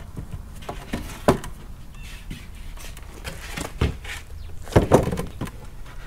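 Several wooden knocks and thumps as a sheet of 5/8-inch plywood and 2x3 boards are turned over and set down on wooden sawhorses, the loudest about five seconds in.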